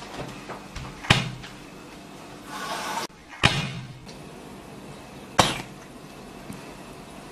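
Three sharp cracks about two seconds apart, each with a short ringing tail, and a brief hiss just before the second.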